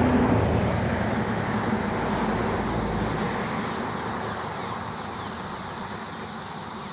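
A vehicle passing by, its road and tyre noise with a low rumble loudest at the start and fading steadily away over several seconds.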